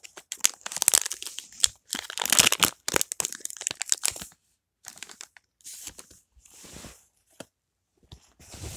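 A Pokémon booster pack's foil wrapper being torn open and crinkled in the hands. It crackles densely for about four seconds, then gives a few softer rustles.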